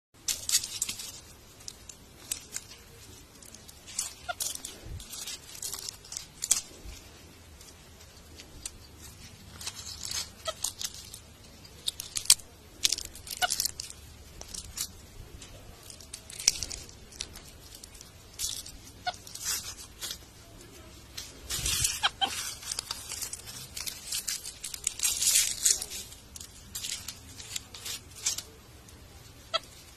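Dry fallen leaves being crushed and crumbled in hands, a monkey's and a person's, making short crackling crunches. They come in irregular clusters separated by quieter pauses.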